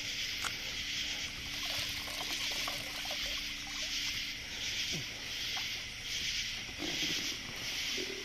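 Chorus of night insects pulsing evenly a little more than once a second, over a steady low hum. Scattered small knocks, rustles and splashes come from a flathead catfish being netted and handled at the boat.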